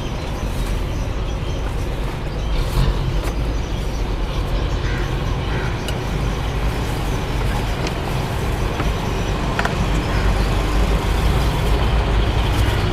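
Steady street traffic noise: a continuous low rumble of passing road vehicles, with a few short faint clicks on top.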